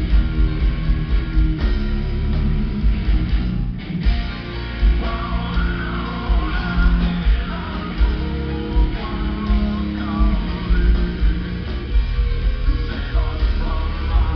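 Heavy metal band playing live and loud: distorted guitars, bass and pounding drums on a steady beat, with a short break just before four seconds in and a wavering vocal line over the band after that.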